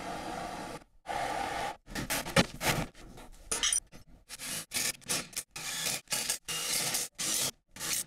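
Short, irregular scraping and rubbing strokes on copper pipe and fittings, as they are cleaned for soldering. A steadier hiss fills the first second or so.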